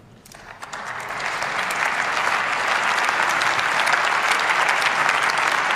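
Members of parliament applauding in the plenary chamber. The clapping swells from near quiet over the first second or two into a steady, dense applause.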